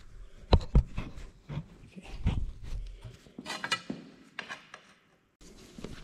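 Knocks and light metallic clatter as a small sheet-metal plate is handled and fitted onto the machine, with two short hissy bursts a little past halfway.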